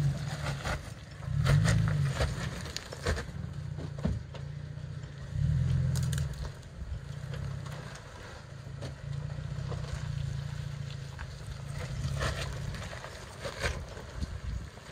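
Off-road vehicle engine running at low speed, its revs swelling about one and a half seconds in and again around five and a half seconds, with scattered crunches and scrapes of tyres grinding over rock.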